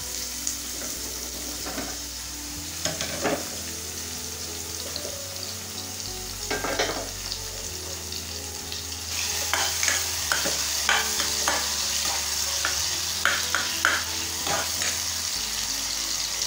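Oil sizzling in pans as cauliflower slices grill and chopped tomato and garlic fry, with scattered clicks and knocks of a spoon against the pan. The sizzle grows louder about nine seconds in.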